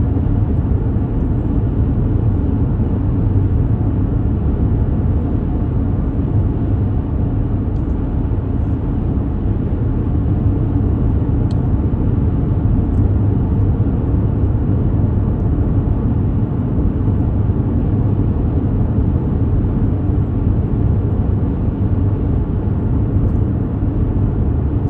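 Car driving along a road, heard from inside the cabin: a steady low road and engine rumble.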